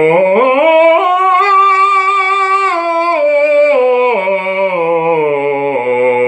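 Male bass voice singing a scale up and back down on a sustained vowel, with vibrato, as a vocal exercise. The voice climbs in steps over the first second and a half, holds near the top, and steps back down to a low note.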